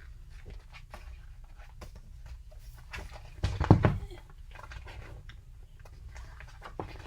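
Faint scattered clicks of handling in a quiet room over a low steady hum, with one louder dull thump about three and a half seconds in.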